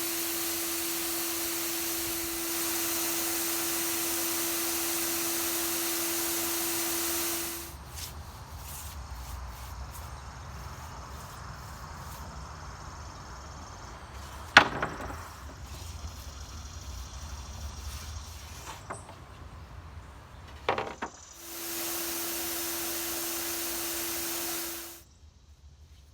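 A small electric power tool running steadily with a hum and a hiss, shutting off about eight seconds in; then scattered clicks and a couple of sharp knocks of wood being handled, and the tool running again for a few seconds near the end.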